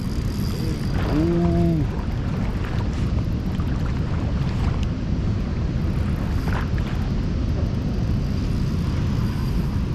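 Steady low rushing rumble of wind and moving river water at the shoreline, with no distinct events.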